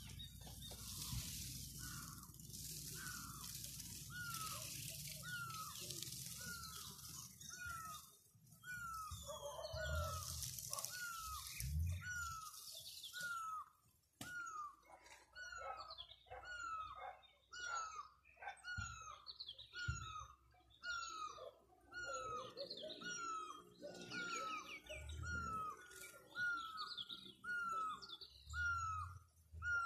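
Birdsong: one bird repeats a short falling call about three times every two seconds, while other birds chirp higher and faster from about halfway. A rustling hiss runs under the first half and stops about halfway.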